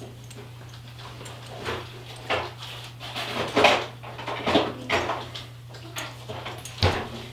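A dog on a leash moving about, giving a series of irregular short scuffs and clicks, loudest about halfway through, over a steady low hum.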